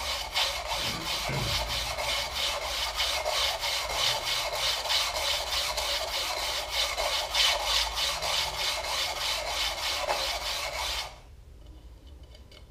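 Hand-held sharpening stone rubbed back and forth along a pair of short-track speed-skate blades clamped in a sharpening jig: a steady rasping scrape of quick, even strokes that stops near the end.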